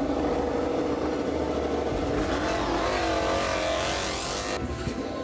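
MotoGP race motorcycle engines running and revving, their pitch rising and falling in the middle.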